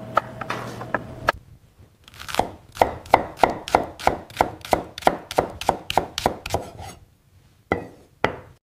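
Kitchen knife chopping vegetables on a wooden cutting board. A few cuts sound over a low steady hum, then after a short pause comes a regular run of about three chops a second, and two more single chops near the end.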